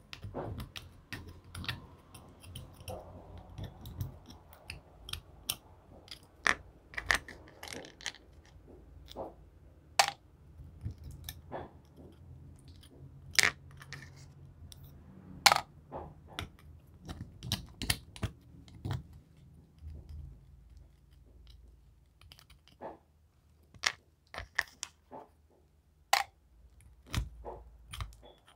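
Plastic spoon stirring and scraping through clear slime packed with small hard colourful pieces on a plastic plate: irregular sharp clicks and taps as the pieces knock against each other, the spoon and the plate, a few much louder than the rest.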